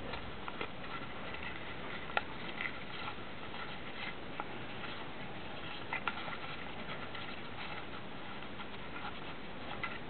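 Folded paper being handled and creased by fingers, a few soft crackles and crinkles over a steady hiss.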